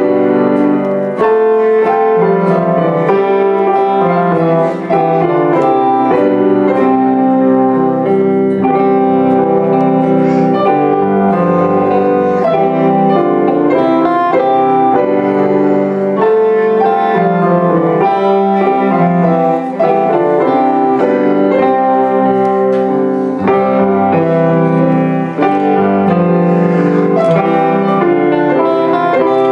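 Live music played by a junior high ensemble, with piano to the fore and sustained notes over a steady pulse of note attacks.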